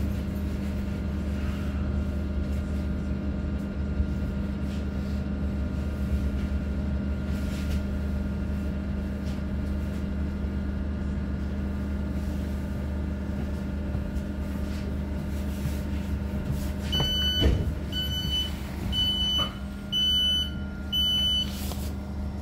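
Steady low hum of an electric commuter train's on-board equipment, heard inside the carriage while it stands at the platform. About 17 seconds in comes a thud, then five short, high beeps about a second apart: the door-closing warning.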